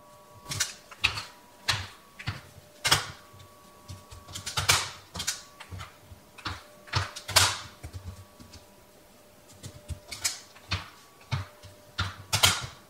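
Metal bench scraper cutting through bread dough and knocking against the countertop: irregular sharp taps and clacks, with softer sounds of hands working the dough between them.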